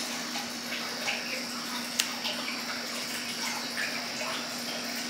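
Steady whirr of an electric box fan with a low hum, and one sharp click about two seconds in, the snip of grooming scissors trimming hair at a poodle's ear, with a few fainter clicks around it.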